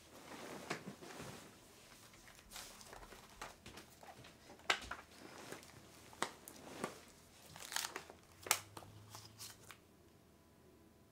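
Paper rustling and crinkling as a book's pages are handled, in a string of irregular sharp crackles, the loudest about halfway through and again a little later, before it dies away near the end.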